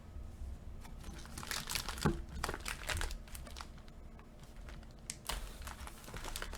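Plastic trading-card packaging crinkling and crackling in irregular bursts as it is torn open by hand.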